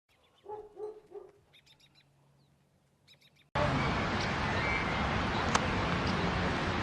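Three short pitched animal calls, then faint high chirps. About halfway through, a sudden cut to a loud, steady rushing noise with a single click.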